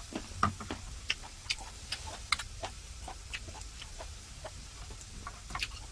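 Makchang (grilled intestines) sizzling on an electric grill pan: irregular crackling pops, a few a second, over a faint hiss.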